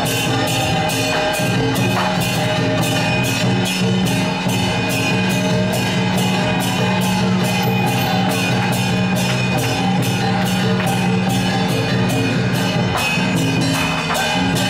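Loud procession band music: a held, stepping wind melody over steady cymbal and drum strokes, about three a second.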